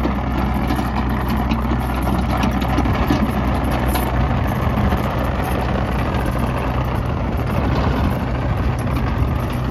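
Doosan DX85R-3 mini excavator's Yanmar diesel running steadily as the machine tracks over dirt on its rubber tracks, with a few faint clanks.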